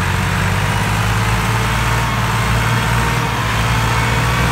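Massey Ferguson MF 260 turbo tractor's diesel engine running steadily under load as it pulls a trolley heavily loaded with logs.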